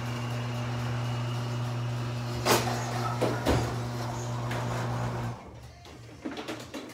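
MIG welder arc on a broken exhaust stud, a steady buzzing hum with crackle and a couple of sharp pops. It cuts off abruptly about five seconds in, and a few light knocks follow.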